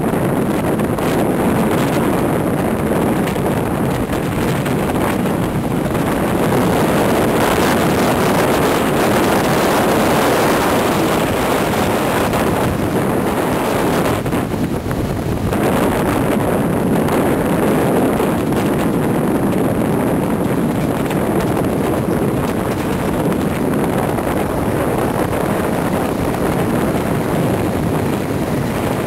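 Steady, loud rush of wind buffeting the microphone over road and traffic noise, recorded from a vehicle moving along a busy road beside heavy trucks.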